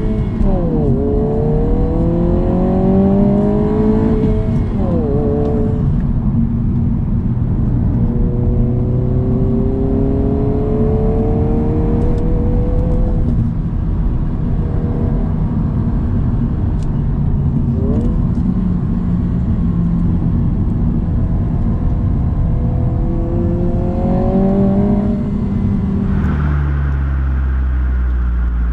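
The 2022 Honda Civic Si's L15B7 1.5-litre turbocharged four-cylinder accelerating through the gears, its pitch climbing and then dropping at each upshift. Near the end it settles into a steady low drone.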